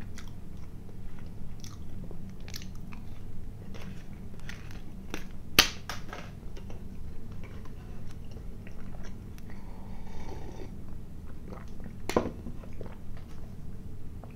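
Close-miked mouth sounds of chewing a soft chocolate-covered cream soufflé candy: small wet smacks and lip clicks over a low steady hum, with two sharper clicks about five and a half and twelve seconds in.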